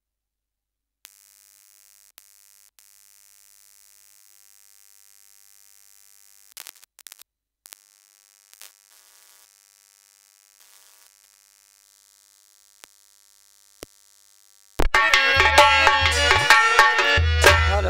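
Faint steady hiss with a few small clicks for most of the time, then about fifteen seconds in loud Indian folk music starts suddenly: harmonium with heavy dholak drumming.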